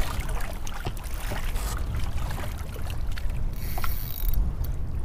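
Wind and choppy water slapping around a kayak, a steady low rumbling wash, with a few light clicks and knocks scattered through it and a short hiss about three and a half seconds in.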